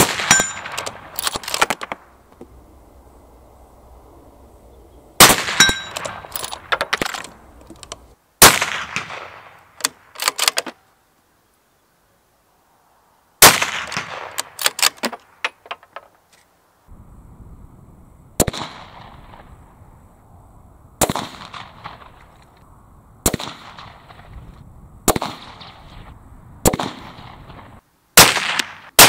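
Mauser M18 Fenris bolt-action rifle in 6.5 Creedmoor firing about ten single shots, 1.5 to 5 seconds apart. Each sharp report trails off and is followed by a few fainter sharp knocks.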